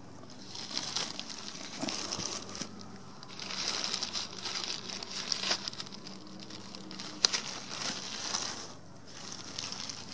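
Plastic bag crinkling and rustling in irregular bursts as it is pulled off a pumpkin. A single sharp click comes about seven seconds in.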